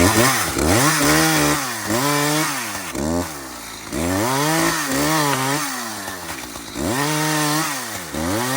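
Chainsaw cutting into a log under tension with the tip of the bar, worked slowly so the bar doesn't get pinched. The engine speed rises and falls over and over, every half second or so, as the cut loads it.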